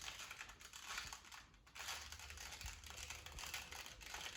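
A 2x2x2 Rubik's Cube being scrambled, its layers twisted quickly by hand in a fast, uneven run of small plastic clicks.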